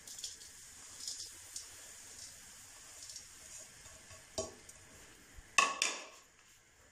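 Sugar poured from a plate into hot ghee in a steel wok, with a faint sizzle and a few light clinks. Near the end come two sharp knocks as the plate is emptied against the pan.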